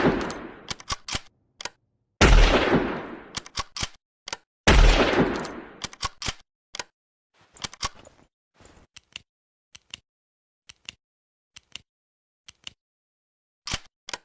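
Mosin-Nagant bolt-action rifle firing: the echo of one shot dies away, then two more shots about two and a half seconds apart, each ringing out for over a second. Between and after the shots come sharp metallic clicks and clinks of the bolt being worked and of parts and casings, trailing off into sparse single clicks.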